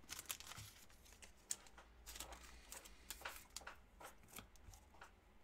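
Faint, scattered soft clicks and rustles of trading cards being handled and set down, the sharpest about a second and a half in.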